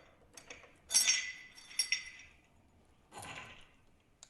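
Metal parts clinking against each other, with short ringing clinks about a second in and again near two seconds, then a softer rustle, as hose fittings are worked loose from an oil separator's connecting housing.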